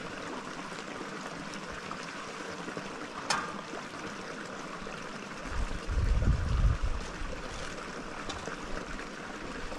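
Steady rush of flowing stream water. A sharp click comes about a third of the way in, and a low rumble swells and fades around the middle.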